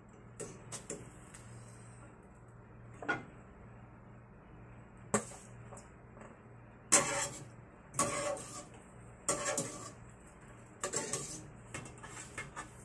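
A wire spider strainer clattering and scraping against a metal pot and bowl as blanched bean sprouts are scooped out of the water, in a series of irregular knocks, the loudest about seven seconds in, over a steady low hum.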